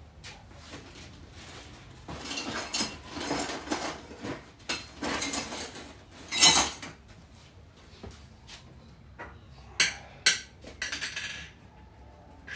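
Someone rummaging through a stock of parts and hoses: irregular rustling and clattering of hard objects, loudest a little after the middle, then two sharp knocks and more rattling near the end.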